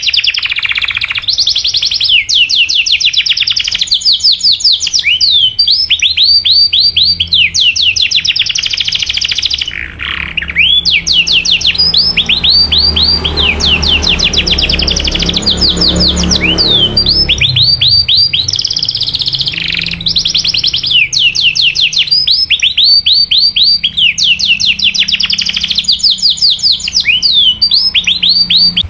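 Domestic canary singing: long, fast trills of repeated downward-sweeping 'cuit cuit' chirps, one run after another with only brief pauses.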